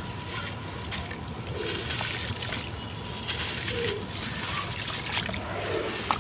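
Crumbly sand-cement blocks breaking up in water: gritty crumbling with many small crackles and splashing.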